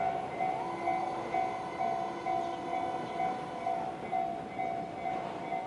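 A Japanese railway level-crossing warning bell, fainter than the one that rang just before, beeping steadily about twice a second. Underneath, a faint tone rises, holds for a few seconds and falls away.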